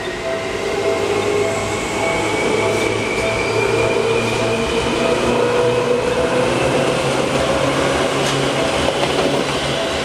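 Electric commuter train of the Seibu Shinjuku Line passing over a level crossing, its motors whining and slowly rising in pitch as it gathers speed over a low rumble of wheels on rail. The crossing's warning bell rings steadily at about two strikes a second.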